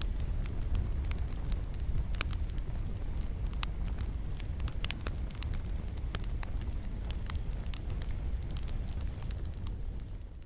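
Wood fire in a fireplace crackling, with frequent sharp pops and snaps over a steady low rumble of the flames. The sound fades down in the last second.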